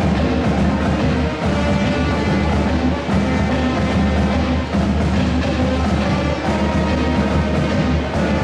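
Music with drums playing loud and steady.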